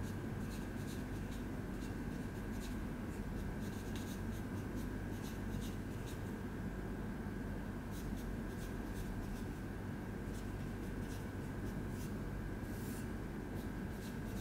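Whiteboard marker writing on a whiteboard in many short, irregular strokes, over a steady low hum.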